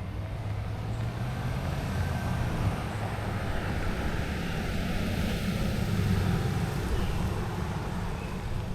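A passing vehicle: a steady low rumble that swells toward the middle and eases off again.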